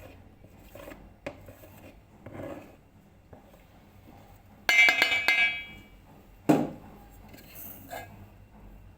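A metal serving spoon scraping and knocking on a metal mixing bowl and pot. Small clicks lead up to one loud ringing clang a little past the middle, followed by a single sharper knock.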